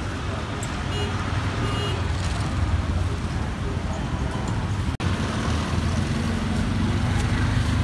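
Busy street traffic: motorbike and vehicle engines running as a steady low rumble with road noise. The sound drops out for an instant about five seconds in.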